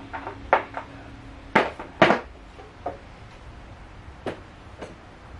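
Metal tools and parts clinking and clanking as they are handled, about eight separate knocks with the loudest about two seconds in. A faint low hum stops about one and a half seconds in.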